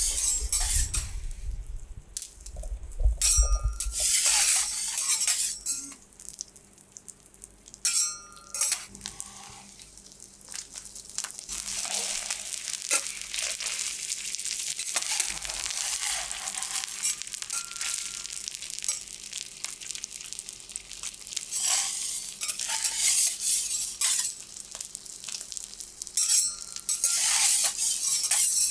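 Whole sweetfish (ayu) sizzling in oil on a steel teppanyaki griddle. Metal spatulas scrape and clink against the plate a few times, with short ringing strokes about 3, 8 and 27 seconds in.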